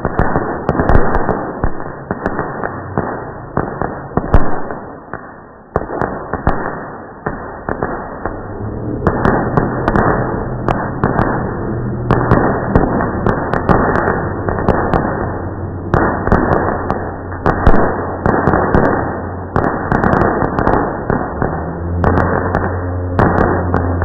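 Fireworks display slowed down to several times its length: a loud, continuous wash of stretched-out bangs and crackle with sharp clicks scattered through it. A low steady hum comes in about nine seconds in and grows stronger near the end.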